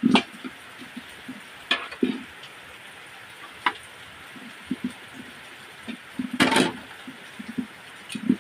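Hands rubbing and pressing a raw whole duck in a large aluminium basin: irregular soft thuds and a few sharp taps of the bird and hands against the metal, with the busiest handling about two-thirds of the way in. A steady hiss lies underneath.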